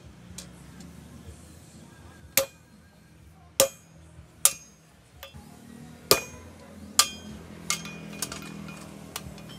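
Sledgehammer blows on a handled punch driving holes through a red-hot machete blank on a steel anvil: about eight sharp, ringing metal strikes, roughly a second apart.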